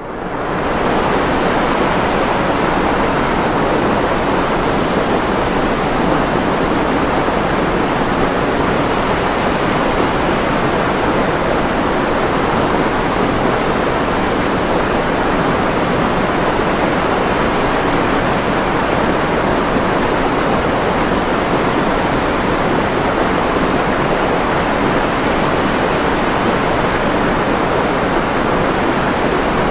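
Steady white noise for sleep: an even, unchanging hiss with most of its strength in the low and middle range rather than the treble. It fades in during the first second.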